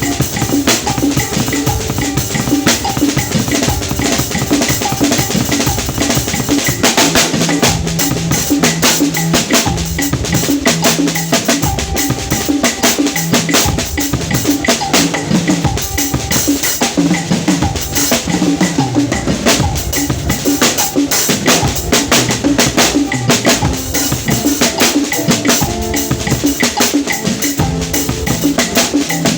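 A drum kit played continuously, with kick drum, snare and cymbal strikes packed closely together. Some held low notes run underneath.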